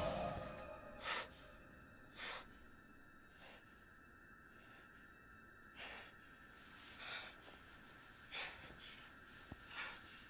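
A young man breathing hard after waking from a nightmare: seven short, heavy breaths about a second and a quarter apart, with a pause in the middle. A faint steady hum lies underneath.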